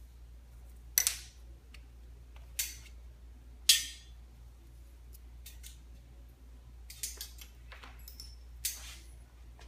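Small metal tools and parts clicking and clinking as they are handled at the brake lever: a handful of sharp separate clicks, the loudest about a second in and again about three and a half seconds in.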